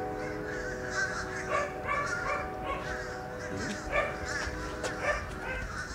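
Short, high animal calls repeating about two to three times a second, over a steady held tone.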